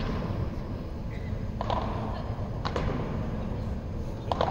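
Padel rally: a padel ball struck back and forth by the rackets, four sharp pops about a second apart, each ringing on briefly in a large hall, over a steady low rumble of hall noise.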